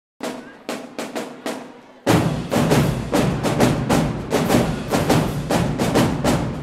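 Marching drumline of snare drums, tenor drums and bass drums playing: a handful of separate loud strikes about half a second apart, then about two seconds in the full line comes in with dense, rapid drumming.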